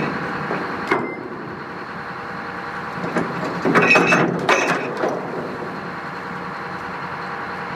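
Tugboat's engines running steadily. A knock comes about a second in, and a louder cluster of knocks and clatter comes around four to five seconds in.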